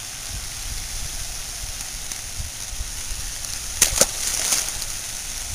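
A bass dropped back into the pond, splashing into the water about four seconds in with two sharp slaps close together.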